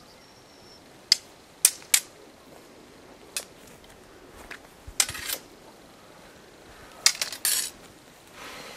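Wooden training swords and sticks clacking against each other in sparring: about seven sharp knocks at irregular times, several in quick pairs.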